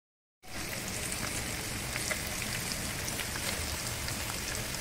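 Breaded chicken cutlets shallow-frying in hot oil in a pan: a steady sizzle with fine crackles, starting about half a second in after a moment of silence.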